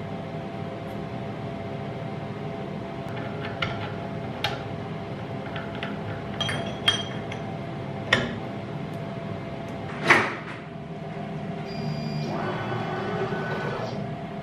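Sharp metal clicks and knocks as a collet nut and cutting bit are fitted and tightened on a CNC router spindle, the loudest knock about ten seconds in, over a steady hum. A steady whine starts near the end.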